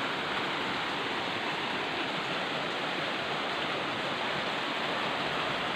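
A small waterfall spilling down a rock face onto rock slabs: a steady rush of falling water.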